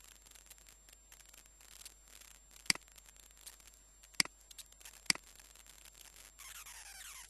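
Computer mouse clicking: three sharp clicks a second or so apart in the middle, with fainter ticks around them, over faint hiss. A short falling swish near the end.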